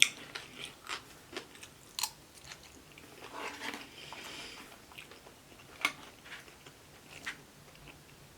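Close-up chewing and crunching of food, with a few sharp clicks at irregular intervals.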